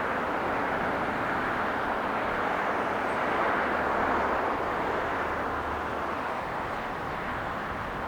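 Jet airliner engine noise: a steady rushing roar that swells slightly near the middle and then eases off.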